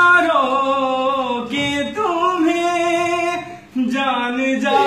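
A man singing unaccompanied, holding long drawn-out notes that slide slowly in pitch, with a brief break for breath about three and a half seconds in.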